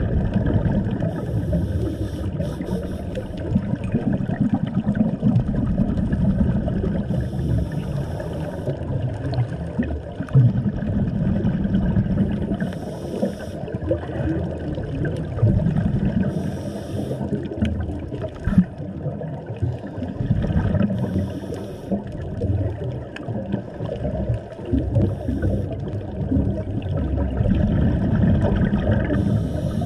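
Scuba diver breathing underwater through a regulator: a short hiss about every four to six seconds, with a churning, bubbling rumble of exhaled air between.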